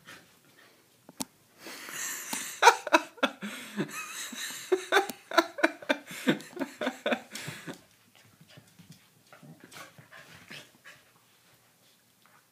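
Doberman puppy and corgi play-fighting. From about two seconds in to near eight seconds they make a dense run of short, rapid yips and growls, then quieter scuffling and panting.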